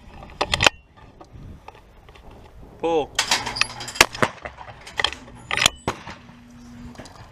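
Metallic clicks and clinks of a shotgun being handled and loaded, a short shouted call a little under three seconds in, then a sharp shotgun shot at a flying clay target about four seconds in, followed by more sharp cracks.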